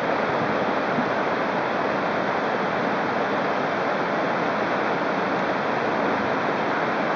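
River water rushing past, a steady, even rush with no breaks.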